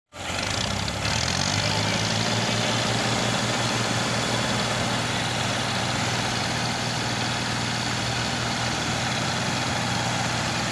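Diesel engines of a Massey Ferguson 240 and a Ghazi tractor running steadily with a low, even hum.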